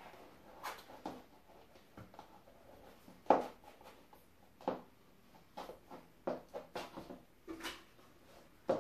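High-heeled shoes clicking and knocking on a wooden floor in irregular steps and shuffles, with one louder knock about three seconds in and a quick run of steps in the last few seconds as the wearer moves to a wooden chair and sits.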